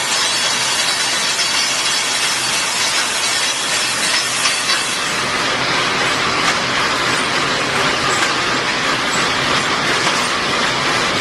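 Automatic welded wire mesh machine for chicken cage panels running: a loud, steady, dense mechanical clatter with hiss, its rapid strokes blending together.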